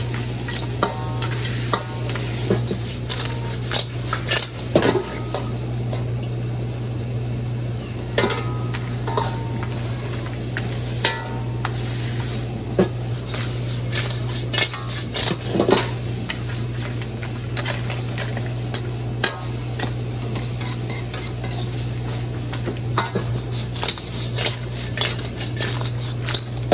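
Food sizzling in a pan while it is stirred, with scattered clinks of metal utensils against the cookware over a steady low hum.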